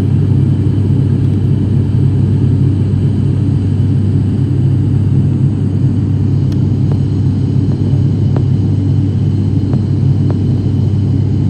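ATR 72 twin-turboprop's engines and propellers heard from inside the cabin during the climb-out after takeoff: a loud, steady, low drone.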